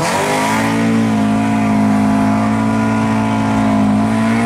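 Honda Civic EG with a loud aftermarket exhaust under a gear pull. The engine note climbs over about the first second, then holds at a steady pitch.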